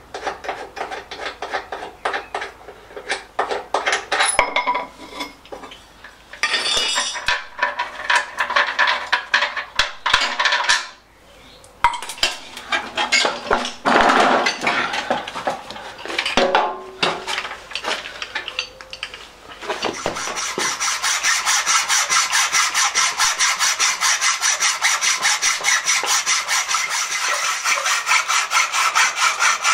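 Metal clinks and scrapes as a rotary lawnmower's blade is worked loose with a ratchet wrench and the steel mower deck is handled. From about 20 seconds in, a hacksaw cuts metal on the mower engine in a steady run of back-and-forth strokes.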